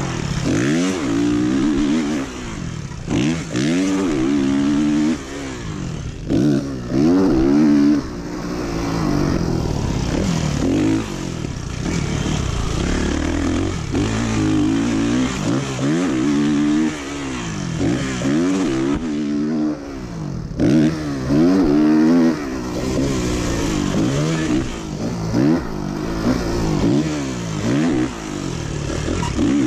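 Motocross dirt bike engine being ridden hard on a track, its pitch climbing and dropping again and again as the throttle is opened and chopped through turns and straights.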